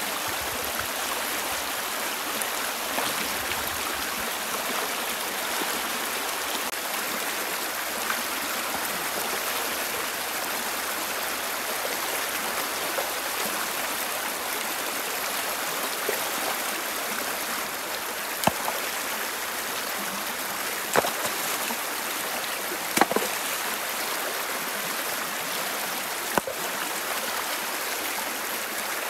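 Shallow rocky river rushing steadily over stones. In the second half a few sharp knocks stand out as rocks are handled in the water.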